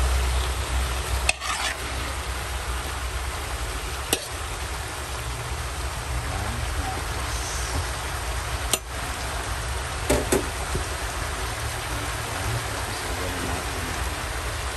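Pakbet vegetables with a little broth sizzling steadily in a wok. A metal spoon knocks sharply against the pan about five times, the last two close together about ten seconds in.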